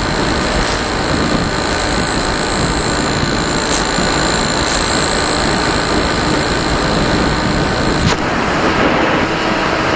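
Wind rushing over the onboard camera of a model motor glider in flight, with a steady high whine from its motor. The whine cuts off about eight seconds in, leaving only the wind noise.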